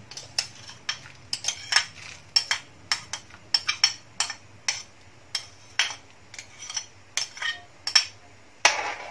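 Spoon repeatedly tapping and scraping against a plate to knock minced garlic off into the pan, about two sharp clinks a second, with a longer scrape near the end.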